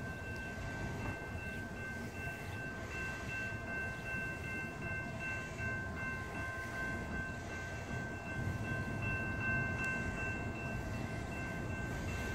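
Railroad grade-crossing warning bell ringing continuously, a steady high chime, over the low rumble of a train approaching in the distance.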